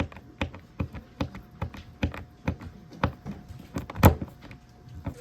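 A regular series of short, sharp taps, about two or three a second, with one louder knock about four seconds in, as closet hardware is worked into a panel.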